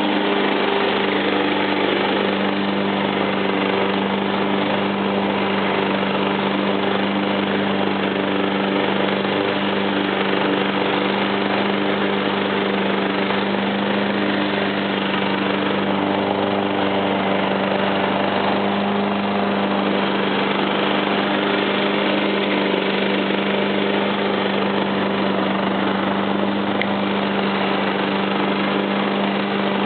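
John Deere JX85 self-propelled lawnmower's replacement engine running at a steady, unchanging speed after a cold start from a month of sitting.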